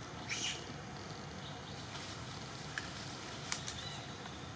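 Outdoor background ambience: a steady hiss, a brief high sound about a third of a second in, and a few faint sharp clicks about three seconds in.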